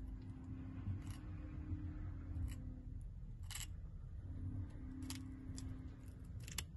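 Small tortoise biting and scraping at a cuttlebone with its beak: irregular sharp, crunchy clicks, about five louder ones spread through. A faint steady hum sits underneath and drops out for about a second midway.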